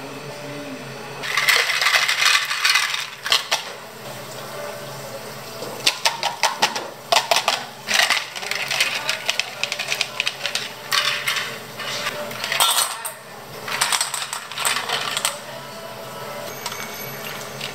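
Ice cubes clattering into a plastic cup and a stainless steel bowl, in three bursts of rapid sharp clinks, as ice is packed around a steel pitcher of freshly steeped tea to cool it.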